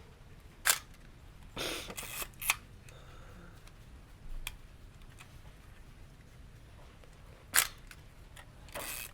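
Zenit EM 35 mm SLR's shutter and mirror firing with a single sharp clack, with the film advance then wound in a short rasp that ends in a click. About seven seconds later the shutter fires again, and the advance starts to wind near the end. The camera is being test-fired, first at 1/125 s and then at 1/60 s.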